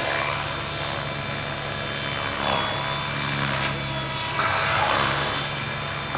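Gaui X7 radio-controlled 3D helicopter flying close and low: a steady rotor and drivetrain whine, with the noise of the blades swelling twice as it swoops down and skims over the grass.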